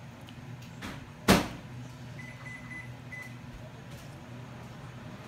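A sharp household knock, like a cupboard door shutting, about a second in, with a softer knock just before it, over a steady low hum; a faint high broken tone follows a little later.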